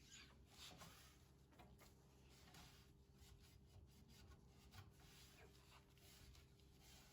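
Faint rubbing strokes at an irregular pace, over a steady low hum.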